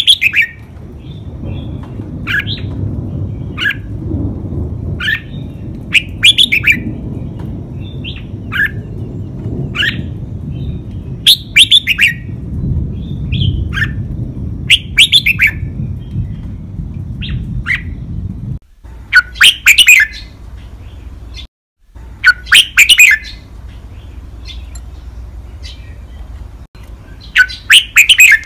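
Red-whiskered bulbul singing its clear five-syllable song, loud short phrases repeated every few seconds with single chirps in between. A low steady background hum runs underneath.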